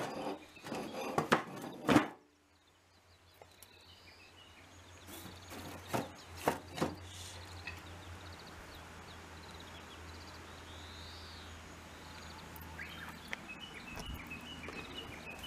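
Bricks and wooden boards knocked down into a stainless-steel sink: several sharp knocks in the first two seconds and two more around six seconds, over a steady outdoor background with faint high chirping.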